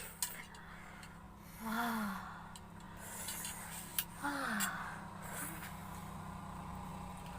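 A person lets out two short voiced gasps, one about 2 seconds in and one about 4 seconds in, with a couple of small sharp clicks between them. These are the breathy vocal reactions of someone eating very spicy chili-laced noodles.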